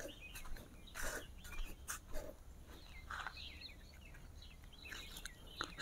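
Faint outdoor ambience with scattered short bird chirps and a few soft clicks.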